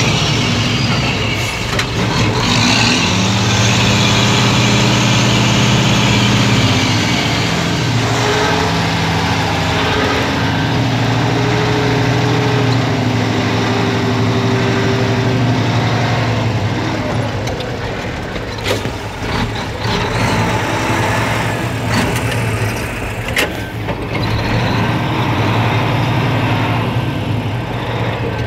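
Mack R-model semi truck's diesel engine running steadily while backing up a lowboy trailer, heard from inside the cab. In the second half the engine drops a little and several sharp clicks or knocks come through.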